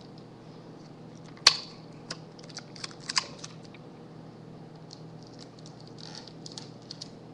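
A sharp click about a second and a half in, then a scatter of lighter clicks and taps as small objects are handled on a desk, over a steady low hum.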